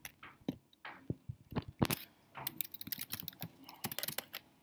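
Typing on a computer keyboard: irregular, quick key clicks with short gaps between them.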